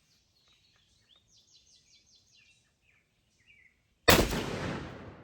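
A single shot from a Mossberg 940 semi-automatic shotgun about four seconds in, sudden and loud, ringing off over more than a second. Before it, faint bird chirps.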